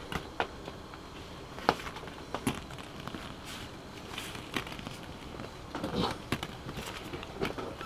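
Hollow plastic play balls clicking and knocking against each other and the inflatable pool in a ball pit as a toddler handles them, in scattered, irregular taps with a short cluster about six seconds in.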